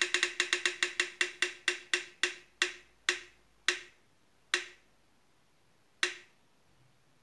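Spin-the-wheel app on a phone ticking as its wheel spins down: clicks at about four a second that slow and spread further apart, the last one about six seconds in as the wheel comes to rest.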